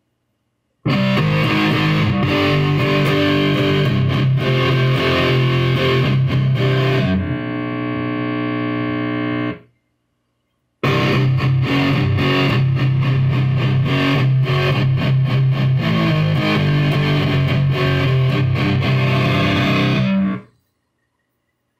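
Heavily distorted electric guitar in drop C playing metal riffs through a Seymour Duncan Forza overdrive pedal into a Randall RG1503H amp head. A held chord rings out about seven seconds in and is cut off. After a short silence the riffing starts again and stops abruptly near the end.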